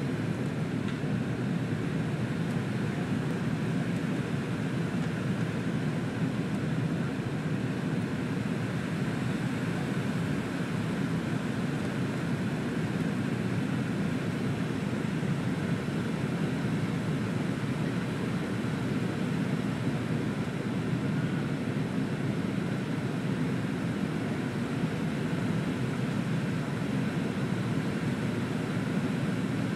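Airliner cabin noise during the descent to land: a steady drone of engine and air noise heard inside the cabin, strongest low down and unchanging throughout.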